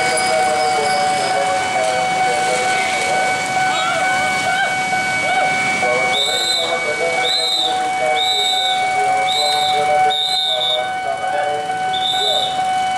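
Level-crossing warning alarm sounding one steady tone, joined from about six seconds in by a guard's whistle blown in short shrill blasts about once a second, over voices and motorbike engines.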